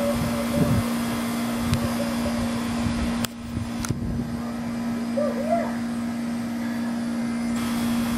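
Steady, loud hum of an outdoor air-conditioner condenser unit running.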